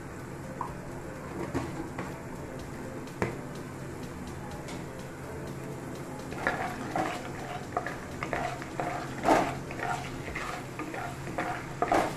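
Raw peanuts frying in oil in a wok with a steady sizzle. From about halfway a spatula stirs them, adding irregular scrapes and knocks against the pan.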